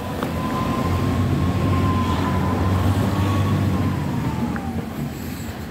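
A motor vehicle running: a low engine rumble with a thin high whine that holds steady, then drops a little in pitch near the end.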